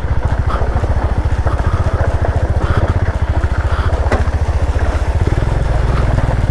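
Motorcycle engine running steadily at low revs, its firing pulses the dominant sound, as the bike rolls slowly over rough gravel, with a single sharp knock about four seconds in.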